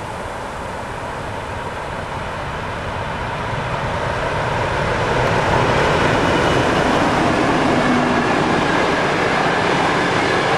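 TEP70BS diesel passenger locomotive approaching and passing at speed, its engine and wheel noise growing steadily louder until it draws level about five seconds in. After that the passenger carriages roll past on the rails with a loud, even din.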